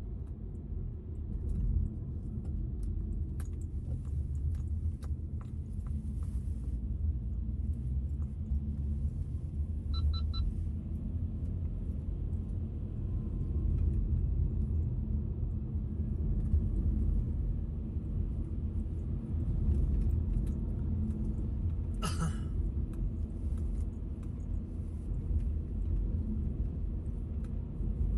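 Steady low rumble of a car's engine and tyres heard from inside the cabin while driving. A short double beep sounds partway through, and a brief noise burst comes later.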